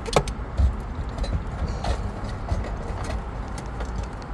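A few irregular sharp clicks and knocks of hard parts being handled as the fuel pump assembly is worked loose from the tank, over a low steady rumble.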